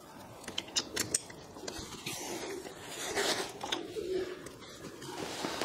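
Light clicks and scrapes of a hydraulic hose and its metal quick-release coupler being handled on a concrete floor, with a few sharp clicks in the first second.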